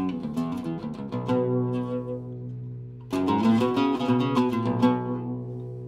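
Syrian-style oud with a cedar soundboard and walnut back, played solo: two phrases of quick plucked notes, one at the start and one about three seconds in, each left to ring out and fade.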